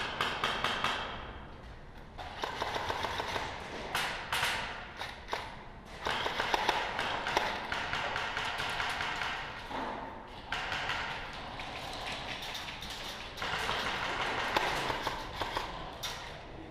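Airsoft gunfire in a large echoing warehouse: runs of rapid sharp clicks and taps from guns firing and BBs striking, coming in several stretches a few seconds long.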